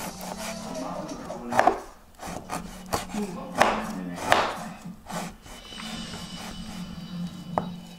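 Chef's knife chopping garlic cloves on a plastic cutting board: a handful of sharp, irregularly spaced knife strikes.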